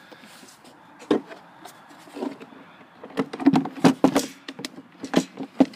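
A run of short knocks and clatter from the plastic lawnmower body being handled, sparse at first and coming thick and fast in the second half. The motor is not running.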